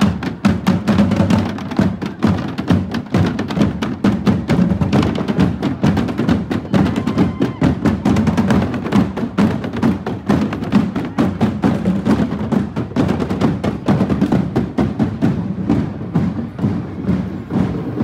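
Marching percussion band drumming a fast, steady rhythm of dense strikes.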